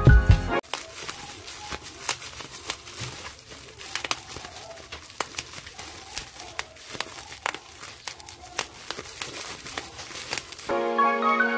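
Bubble wrap crinkled and squeezed in the hands, with many short sharp clicks and pops. Background music cuts off just after the start, and a mallet-percussion tune comes back near the end.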